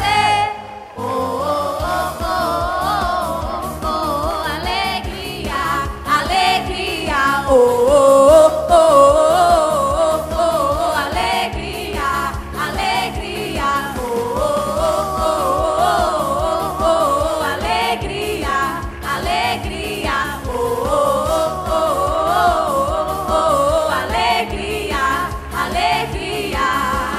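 Mixed youth choir of girls and boys singing a Brazilian pop song together, with a short break about a second in.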